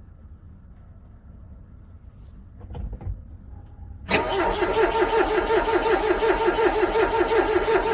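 Quiet at first, then about four seconds in a car's starter motor begins cranking a cold engine. It makes a loud, rhythmically pulsing whir, and the engine does not catch.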